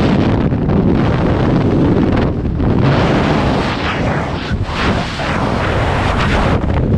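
Freefall wind rushing hard over a skydiver's camera microphone, a loud steady roar that wavers as the body tumbles and turns.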